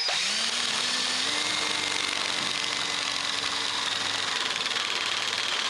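A small motor spinning up and then running steadily with a whirring hum.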